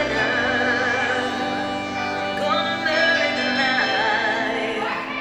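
A female voice singing held notes with vibrato over musical accompaniment.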